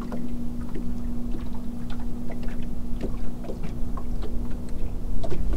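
Bow-mounted electric trolling motor running with a steady hum, over a low rumble of wind on the microphone, with scattered light ticks.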